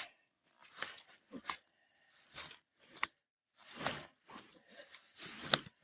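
A string of short, scattered rustling and scraping sounds from people straining to roll a large log by hand.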